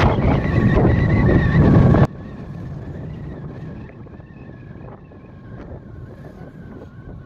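Road and wind noise from a moving vehicle, loud for about two seconds and then dropping suddenly to a quieter rumble with a faint steady high tone.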